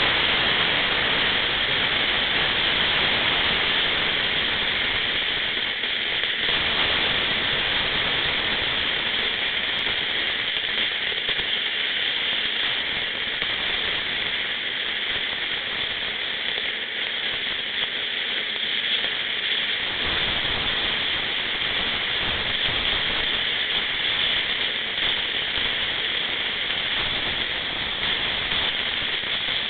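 Carbon dioxide escaping from the valve of a CO2 cylinder in a steady, loud hiss. The lower part of the hiss thins out about six seconds in and fills back in about twenty seconds in.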